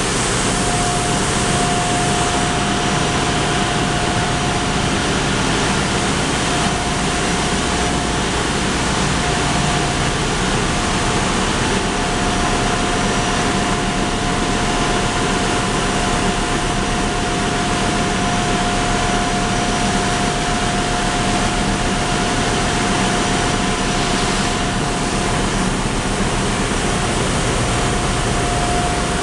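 Steady, loud machinery drone of a ship's engine room, with a steady high whine running through it. The main engine is opened up for overhaul, so the noise comes from the running auxiliary machinery such as electric pumps and motors.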